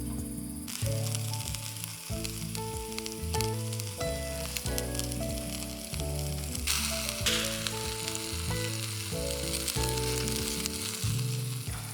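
Skewered chicken and vegetables sizzling and crackling over a charcoal grill, the sizzle swelling briefly about seven seconds in, with background music alongside.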